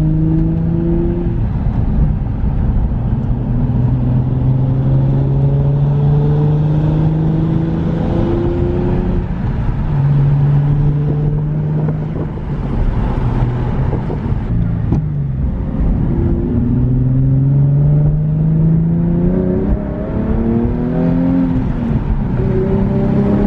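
Nissan 370Z Nismo's 3.7-litre V6 accelerating through the gears. The engine note climbs steadily for a few seconds, then drops back at each upshift, several times over.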